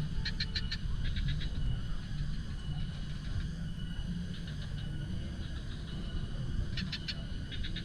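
Outdoor nature ambience: short runs of four or five rapid high chirping calls from small wild animals, twice in the first second and a half and twice near the end. Under them run a steady thin high tone and a constant low rumble.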